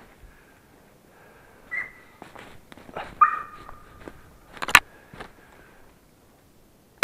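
Laika hunting dog giving two short whines, about two and three seconds in, among soft footsteps in snow, with a sharp click a little before the end. A shotgun shot goes off right at the very end and rings on.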